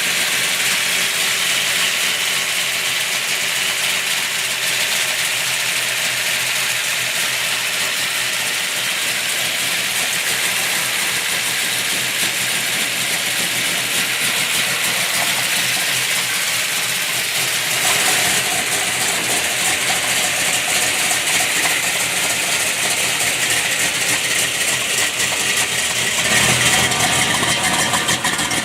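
A 500 hp 440 Magnum big-block V8 in a 1962 Plymouth Savoy wagon idling steadily, with no valve train noise whatsoever. It gets a little louder in the last few seconds.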